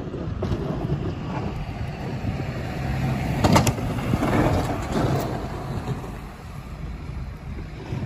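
Blizzard wind buffeting the microphone, with a rumble throughout. A car drives past close by about halfway through, making the loudest part.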